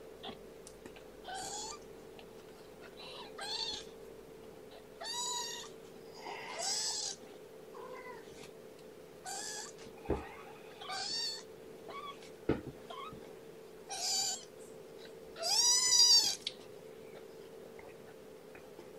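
Young kittens, about two and a half weeks old, mewing repeatedly: about nine short, high-pitched mews with a rising-and-falling pitch, one every second or two, the loudest near the end. A steady low hum runs underneath.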